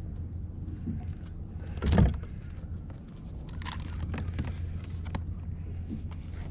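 Handling noise on a kayak: a loud knock about two seconds in and scattered clicks and taps, over a steady low rumble.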